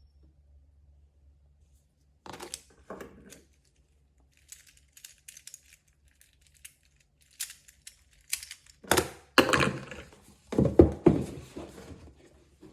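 Fidget toys being handled: scattered light plastic clicks and crinkling, with louder thumps and rustling near the end as toys are set down and moved.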